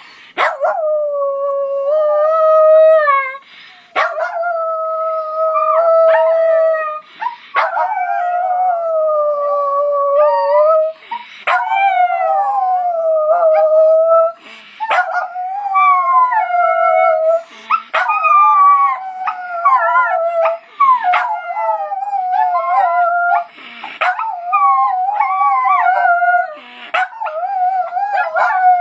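Miniature schnauzers howling: long, wavering howls that break off every few seconds and start again.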